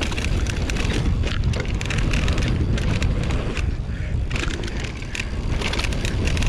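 Mountain bike riding fast down a dirt track: tyres crunching over dirt and gravel with rattling ticks, over a heavy low rumble of wind buffeting the camera microphone.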